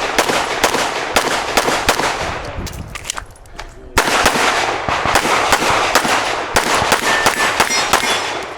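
Glock 47 9mm pistol fired in fast strings of shots during a competition stage. The shooting breaks off briefly about three seconds in, then resumes with a loud shot about a second later and carries on at the same quick pace.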